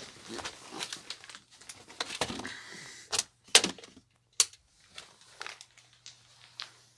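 Things being handled close by: rustling and crinkling, with a few sharp clicks or knocks near the middle.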